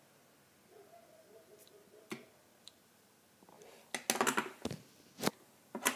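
Plastic novelty pen being handled and clicked: a few sharp clicks, then a quick cluster of clicks and rattles about four seconds in and single clicks after it.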